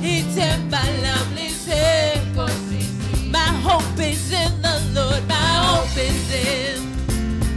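Gospel praise song: a woman sings the lead with vibrato into a microphone over bass and drums.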